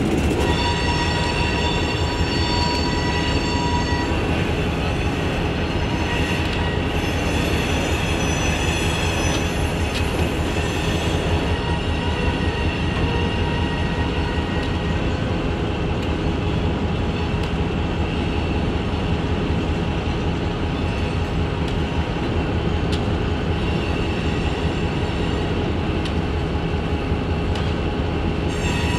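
Freight train cars rolling past, with a steady low rumble. High, steady wheel-squeal tones are strongest in the first dozen seconds and then fade.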